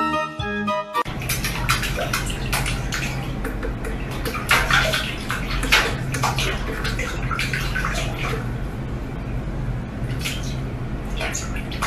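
About a second of keyboard music, then water splashing and sloshing in a stainless steel kitchen sink as a cat paws and wades in it, in irregular splashes over a steady low hum.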